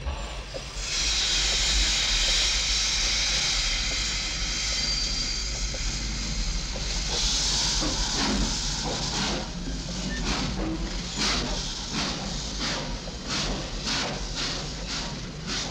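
Steam locomotive releasing steam in a loud, steady hiss, with a second blast of steam partway through. Then it starts chuffing in a regular rhythm, about two beats a second.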